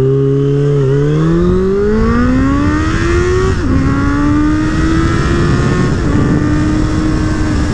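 Suzuki Bandit inline-four motorcycle engine accelerating on the road: its note climbs, drops sharply at an upshift about three and a half seconds in, dips briefly again about six seconds in, then holds a steady pitch.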